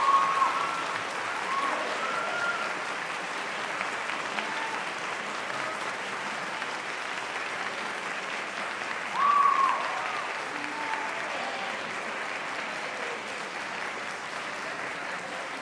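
Concert-hall audience applauding at the close of a band performance, a steady clapping that eases slowly, with a few shouted cheers over it; the loudest cheer comes about nine seconds in.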